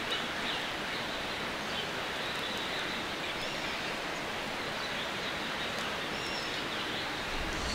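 Steady outdoor forest ambience: an even rushing hiss, with a few faint high bird chirps over it.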